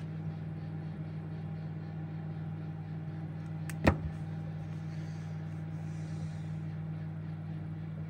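Candy microwave oven running with its magnetron switched on: a steady low electrical hum, the sign that it is heating again. A single sharp click about four seconds in.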